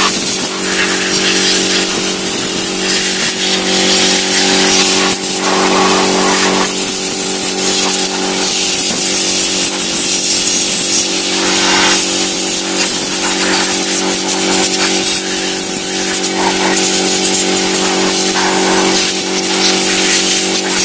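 Air compressor motor running steadily, with the hiss of a compressed-air jet swelling and dropping every few seconds as dust is blown out of a desktop computer case.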